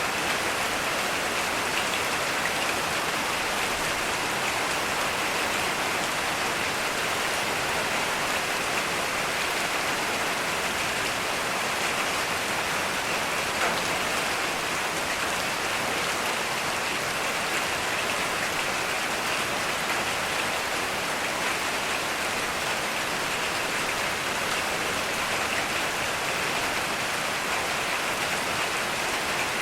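Steady heavy rain falling, an even hiss without let-up.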